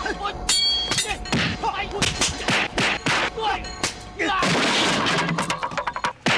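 Action-film fight soundtrack: a rapid run of sharp hits and thuds with short shouts over music. A longer burst of crashing noise comes about four seconds in.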